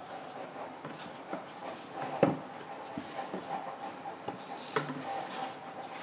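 Handling noise from a plastic bucket feeder with PVC elbow fittings: light scattered knocks and rustles, with one sharp click about two seconds in.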